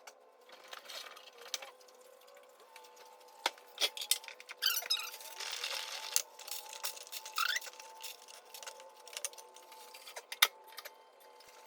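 Scattered light clinks and taps, as of kitchen utensils and dishes being handled, over a faint steady hum.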